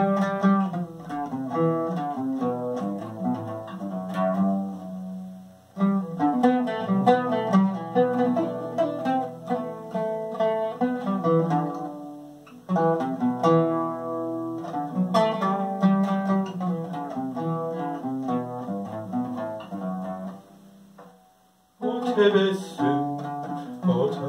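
Solo oud playing an instrumental passage of an aksak şarkı in makam Acemaşiran: runs of plucked notes, with two short breaks, about five seconds in and again near twenty-one seconds.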